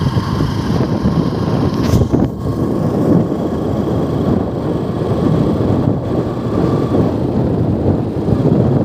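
Kawasaki ZX-10R's inline-four engine running steadily, with a brief sharp click about two seconds in.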